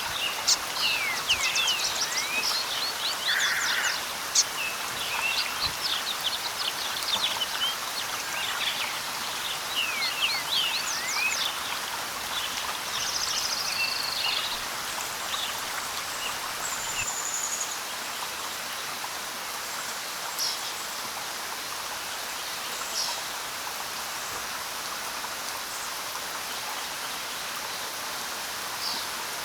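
A steady hiss of water, like a stream or rain, with birds singing over it. Many quick chirps and trills come in the first half, then only a few single calls.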